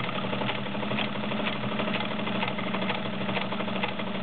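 Vintage Kenmore model 1303 all-metal sewing machine running steadily and sewing a blind stitch: the motor's steady hum with the rapid, even ticking of the needle strokes.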